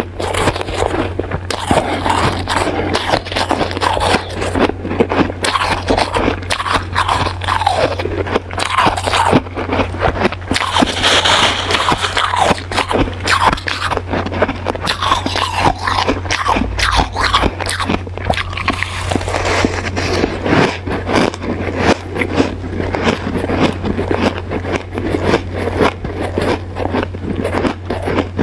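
Close-miked crunching of hard ice being bitten and chewed, a dense run of crisp cracks and scraping crackles with no pause, over a steady low hum.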